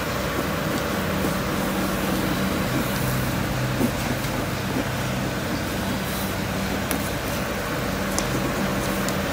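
Steady background hum with an even hiss.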